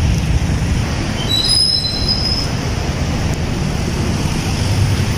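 City street traffic: a steady low rumble of cars, with a brief high-pitched squeal about a second and a half in.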